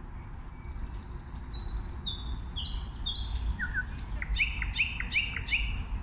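Nightingale singing one song phrase, starting about a second in: a run of high whistled notes that slide downward, then a rapid series of loud clicking notes, about three a second, near the end.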